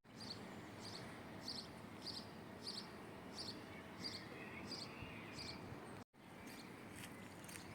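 Faint outdoor ambience: a steady hiss with short high chirps repeating about twice a second. The sound drops out briefly about six seconds in, and fainter chirps follow.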